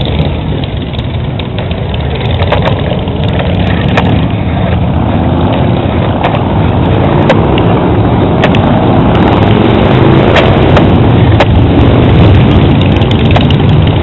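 Motorcycle engines running as bikes ride past in a parade, a loud steady din that builds over the first half and stays loud. A few light clicks are heard over it.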